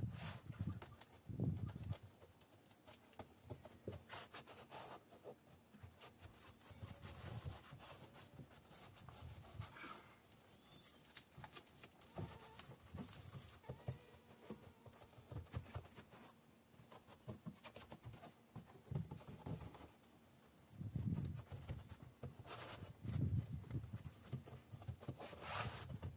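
A cork sheet being handled and pressed by hand onto a van's wall: scattered soft thumps, rubbing and rustling of the sheet, with louder clusters near the start and again near the end.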